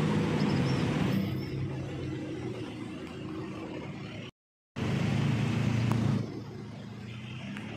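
Diesel railcar engine running, a low steady drone that is loudest in the first second and again from about five to six seconds in, then settles lower. It breaks off into a half-second of silence about four seconds in.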